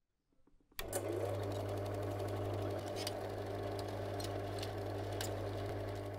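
A sound film projector running: a steady, rapid mechanical clatter over a constant low hum, which starts abruptly about a second in, with a few sharper clicks.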